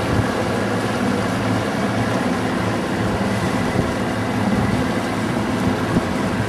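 Boat engine running steadily with an even low hum, under a broad wash of wind and water noise.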